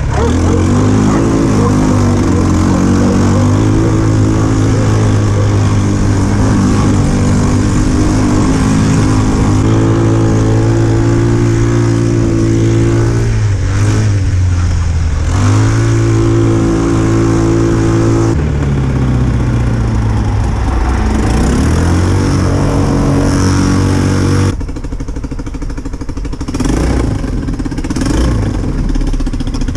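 150cc quad bike engine with a CVT variator, running hard under load, its speed holding steady, dipping and picking up again. Partway through, the engine note falls away. Near the end it runs quieter, with short revs.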